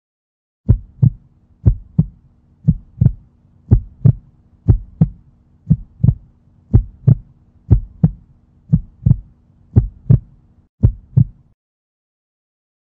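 Heartbeat sound effect: a double thump about once a second, eleven beats in a row, over a faint steady low hum, stopping shortly before the end.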